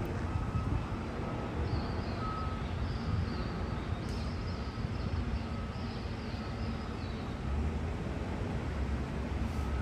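Staten Island Railway R44 subway train rolling slowly through the yard: a steady low rumble, with a faint wavering high squeal through the middle. Short high beeps repeat about once a second.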